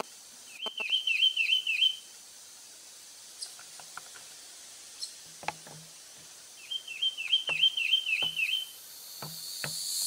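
A small songbird singing a quick series of about eight high, rapidly repeated notes, lasting about a second and a half; the same phrase comes again about six seconds later.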